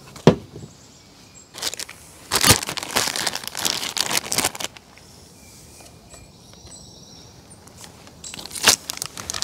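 A clear plastic parts bag crinkling and rustling as it is handled, in two spells, the first about three seconds long and the second near the end. A single sharp knock comes just before.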